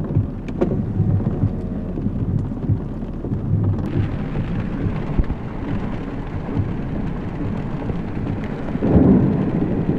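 Gusty squall wind buffeting the microphone in a low, continuous rumble, with rain falling, and a stronger gust about nine seconds in.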